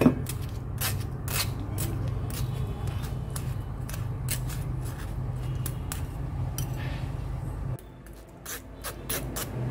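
Metal spoon scraping and clicking irregularly against a stainless-steel mesh sieve as custard apple pulp is pressed through it. A steady low hum runs underneath and drops out about eight seconds in.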